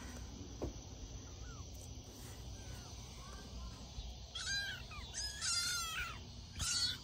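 Young kittens mewing: a few faint, thin mews early on, then three louder, high-pitched mews in the second half, the middle one the longest.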